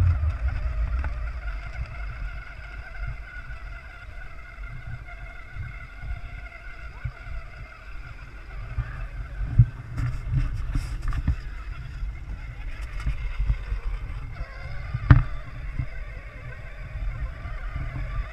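Battery-powered ride-on toy quad's electric motor and gearbox whining steadily as it drives, over a heavy low rumble of wind on the microphone. Two sharp knocks break through, one about ten seconds in and a louder one about fifteen seconds in.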